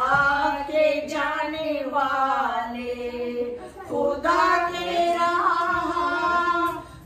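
Group of women's voices singing a devotional naat together, unaccompanied, in long held phrases, with a short pause about halfway through before the singing resumes.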